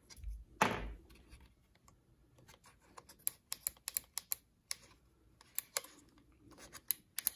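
Irregular light plastic clicks and taps as the cracked-open plastic housing of a Stanley FatMax rechargeable spotlight is handled, with one louder scrape just under a second in.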